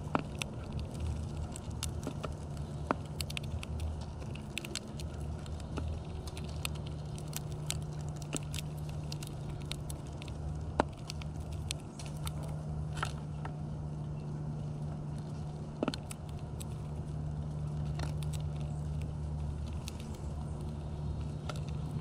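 House finches pecking at and cracking seed in a plastic window feeder close to the microphone: an irregular run of sharp clicks and taps, a few of them louder, over a steady low hum.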